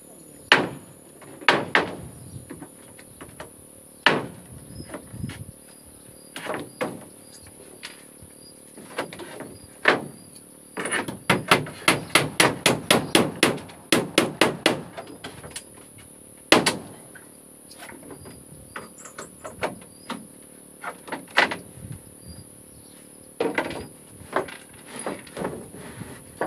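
Hammers driving nails into wooden floor planks. The knocks come irregularly, with a quick even run of about a dozen blows in the middle.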